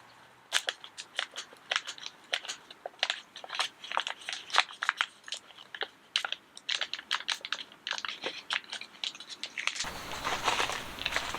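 Irregular crunching and crackling, many quick sharp clicks close together; near the end a steady hiss comes in suddenly.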